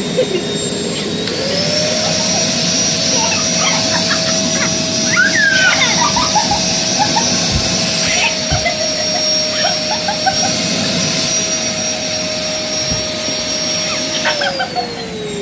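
Household vacuum cleaner running with a steady motor whine that rises in pitch about a second in, holds level, then slides back down near the end.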